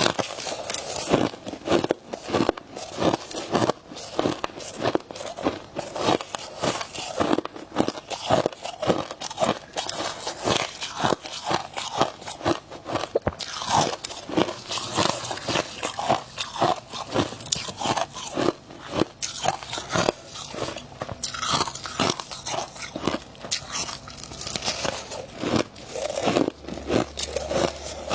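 Close-miked crunching and chewing of freezer frost, a steady run of crisp crunches several times a second.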